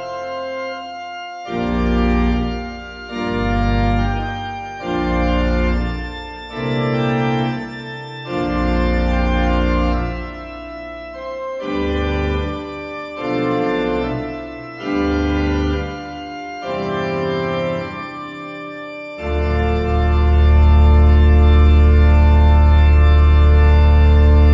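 Organ music: a slow run of held chords over a deep bass line, closing on a long, loud sustained chord near the end.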